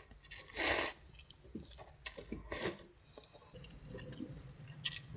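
Instant ramyeon noodles being slurped and chewed: a long slurp just under a second in, two shorter slurps around two to two and a half seconds, another near the end, with soft chewing in between.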